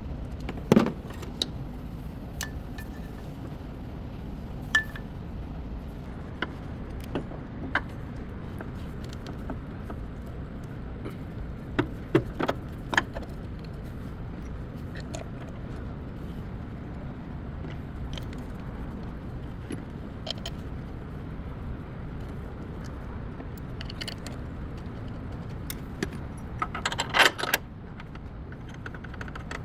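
Scattered metallic clinks and clanks of hand tools against metal during a transmission mount replacement, loudest about a second in, in a few strikes around the middle and in a quick cluster near the end, over a steady low hum.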